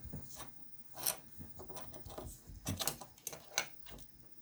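Scattered clicks and light knocks of a small plastic Bluetooth speaker's parts being handled, with a few sharper clicks about a second in and again around three seconds in.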